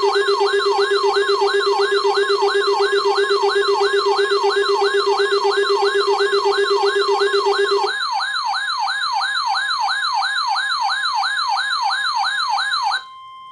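Weather radio alarm for a severe thunderstorm warning: a rapid siren-like yelp sweeping up and down about three times a second over a steady high alert tone, with a lower steady tone that drops out about eight seconds in. Near the end the yelp stops, leaving only the steady tone.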